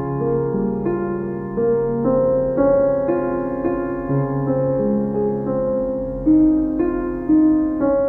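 Background piano music: slow held notes and chords, with a new note coming in about once a second.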